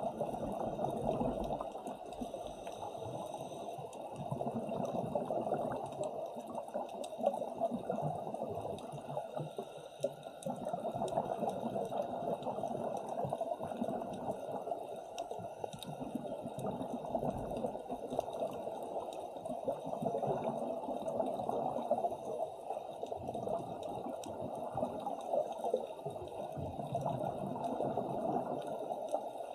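Muffled underwater bubbling from scuba divers' exhaled air, swelling and fading every few seconds.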